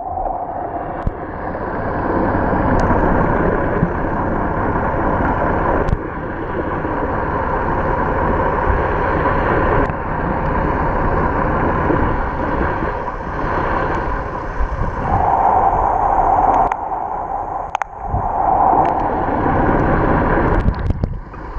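Boat engine running steadily, with water noise.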